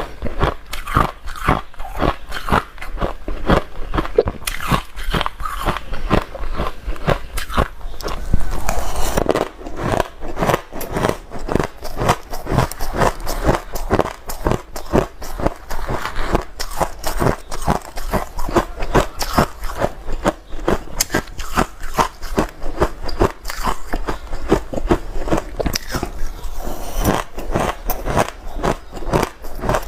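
Hard ice being bitten and chewed close to the microphone: a steady run of loud, irregular crunches, several a second, with a louder burst of crushing about eight seconds in.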